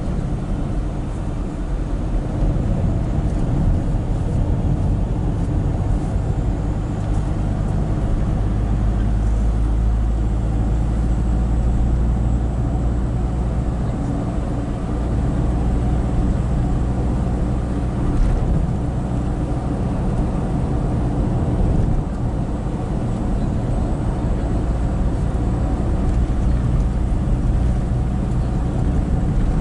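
Steady engine and tyre noise of a moving car heard from inside its cabin, a low rumble with no sudden events.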